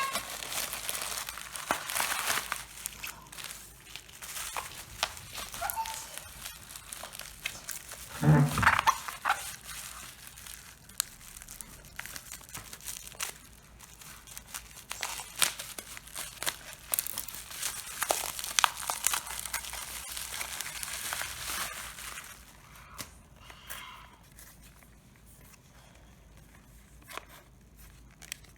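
Product packaging crinkling and rustling as it is handled and opened, with many small crackles that thin out to scattered clicks near the end. A brief louder sound comes about eight seconds in.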